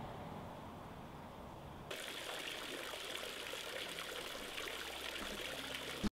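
Water trickling and splashing from an outdoor fountain, a steady hiss that comes in abruptly about two seconds in, after a low outdoor rumble. It ends with a short click and cuts to silence just before the end.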